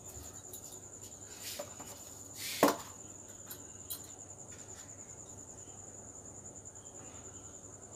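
Kitchen handling sounds from a bowl of snack mixture being worked by hand. There is a sharp knock about two and a half seconds in and a softer one a second before it, over a steady high-pitched whine.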